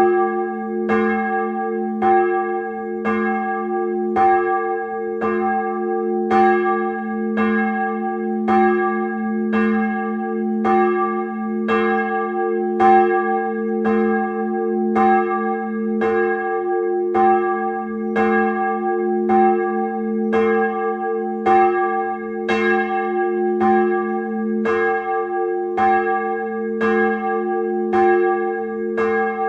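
Swinging bronze church bells from 1922 by KID Jesenice, pealing together. The clapper strokes come in a steady, unbroken rhythm, roughly two a second, over a continuous ringing hum.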